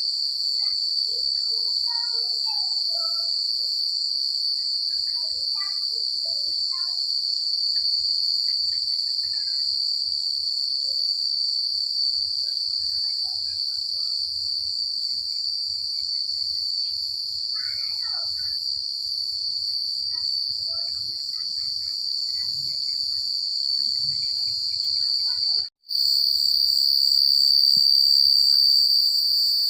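Crickets chirping in a dense, continuous high-pitched trill, with faint scattered chirps underneath. The sound drops out for an instant near the end, then resumes slightly louder.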